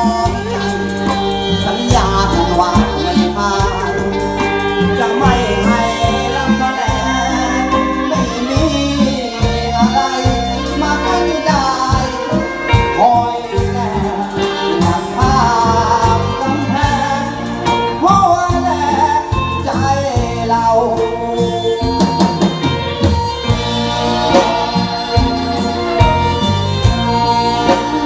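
Live Thai brass band playing a luk thung song, saxophones, conga drums and bass and electric guitars over a steady beat, with a male singer's voice carrying the tune.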